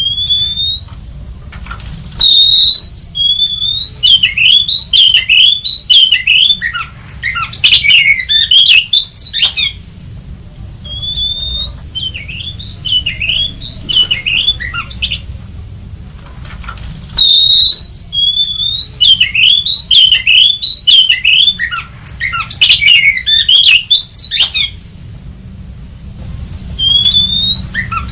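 Oriental magpie-robin (kacer) song: rising whistled notes and fast runs of varied whistles mixed with harsher notes, in two loud bursts with quieter stretches between. The same sequence repeats about fifteen seconds later.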